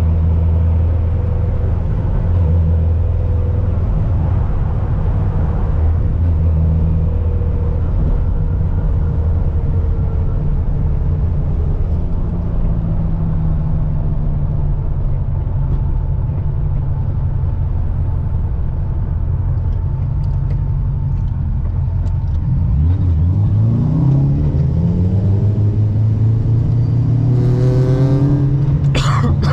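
ProCharger-supercharged LS3 V8 of a Corvette C6 running with a steady low drone while cruising, then climbing in revs twice near the end, the second time sharper and higher.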